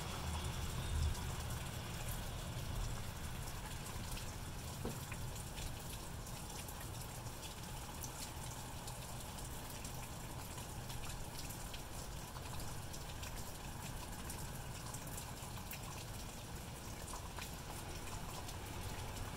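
Steady light rain falling, an even hiss with small drops ticking close by, over a low steady rumble.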